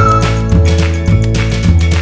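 Upbeat background music with a steady beat, a strong bass line and a whistle-like melody.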